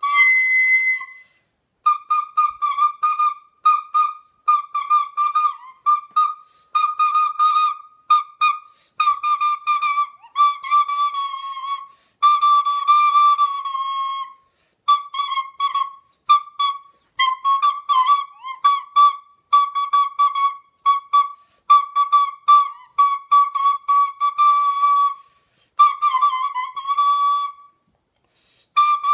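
Recorder played in quick, short tongued notes, mostly repeating one high pitch with small dips below it, in phrases broken by brief pauses.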